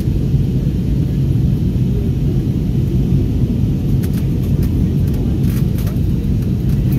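Steady low rumble of cabin noise inside an Airbus A321neo descending toward landing: engine and airflow noise heard through the fuselage.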